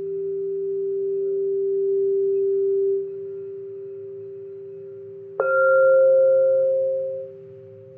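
Singing bowl ringing with a steady humming tone that swells over the first few seconds and then settles. A little past halfway a sharp strike sets off a brighter, higher ringing tone that fades out about two seconds later.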